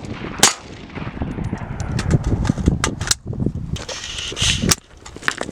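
Gunshots at an outdoor range, a few sharp reports spaced unevenly about half a second in, around three seconds and near the end, with wind rumbling on the microphone throughout.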